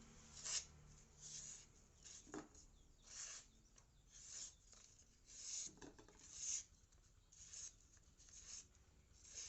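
Faint, evenly repeated scraping strokes of a kitchen knife blade, about one stroke a second, with a couple of light knocks in between.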